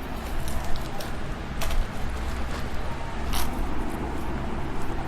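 Vegetables and plastic bags being handled and sorted: rustling, with two sharper crinkles, one about a second and a half in and one about three and a half seconds in, over a steady low background hum.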